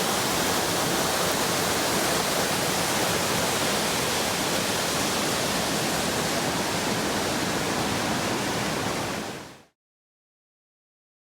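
Steady rush of a waterfall, an even hiss of falling water, fading out quickly about nine seconds in to dead silence.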